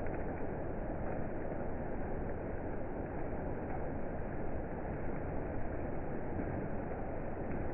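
Steady rushing noise of a thunderstorm, even throughout, with no single thunderclap standing out.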